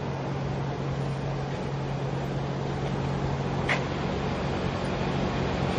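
Steady low mechanical hum of background machinery, with one light click nearly four seconds in.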